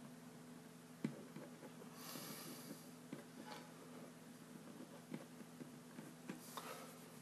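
Faint handling noise of fingers pressing and smoothing play dough on a wooden tabletop: scattered soft taps, a sharper tap about a second in and a brief rubbing swish about two seconds in, over a steady low hum.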